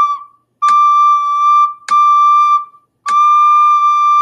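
Soprano recorder playing a high D, tongued as separate notes, one to each metronome click, then held as one long note from about three seconds in. A metronome clicks steadily at 50 beats a minute, one click every 1.2 seconds.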